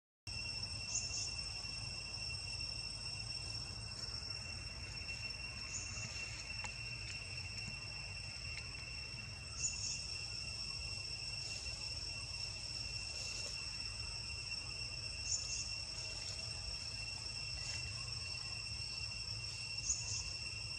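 Forest insects drone steadily in one continuous high-pitched tone. Short higher chirps come about every five seconds, over a low rumble.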